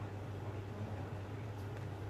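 Steady low electrical hum with a faint hiss, and a couple of faint light clicks near the end as the phone's loose back panel is handled.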